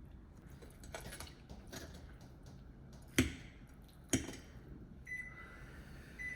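Two sharp knocks about a second apart, with a few lighter clicks before them and a faint, steady high beep near the end.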